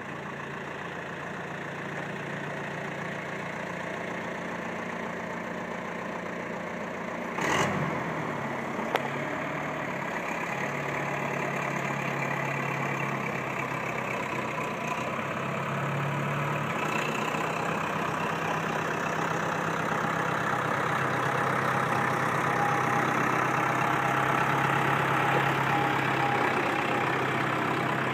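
Tractor engine idling steadily, with a single sharp clunk about seven seconds in.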